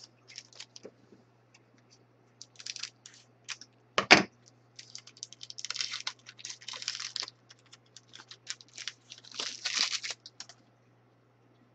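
A trading card pack wrapper crinkling and tearing open in quick crackles, then cards being handled and flicked through. One sharp knock about four seconds in is the loudest sound.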